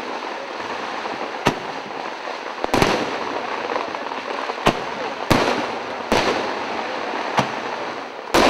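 Fireworks display: aerial shells bursting, about seven sharp bangs at irregular intervals over a steady background of noise.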